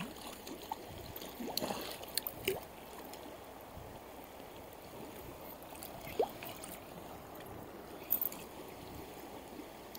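Shallow river water running steadily over a stony bank, with a few brief sharp sounds about two seconds in and again near the end.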